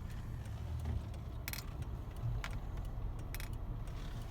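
Car driving, heard from inside the cabin: a steady low road and engine rumble, with a few brief rattling clicks.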